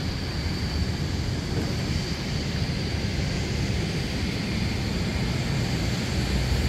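Steady low rumble of airfield background noise with a faint, steady high-pitched whine, no distinct events.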